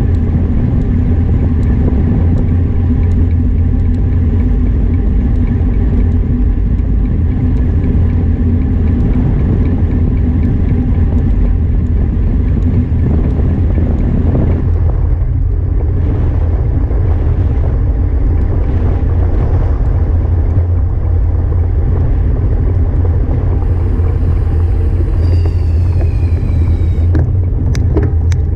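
Wind buffeting a bike-mounted action camera's microphone while riding, a loud steady low rumble mixed with tyre noise on smooth pavement. Near the end a brief high falling tone sounds, followed by a few sharp clicks.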